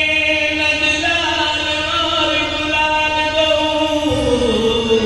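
Devotional kirtan singing: long, held sung notes in a slow chant that step from pitch to pitch, sliding down about four seconds in.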